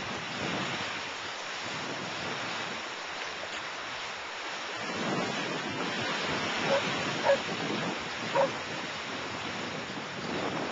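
Ocean surf breaking and washing up the beach in a steady surging rush, with wind buffeting the microphone. About two-thirds of the way in, three short, sharp pitched sounds stand out above the surf.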